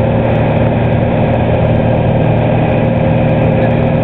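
Single-engine piston light aircraft's engine and propeller droning steadily in flight, heard from inside the cabin.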